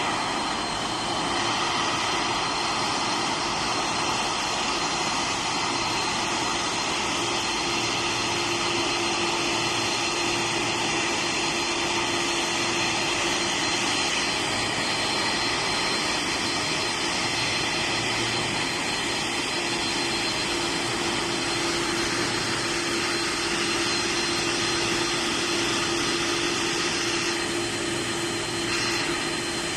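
Boeing 747-400's four turbofan engines running at low taxi power as the jumbo taxis in close by. The result is a steady jet rush with a constant low hum and a high whine.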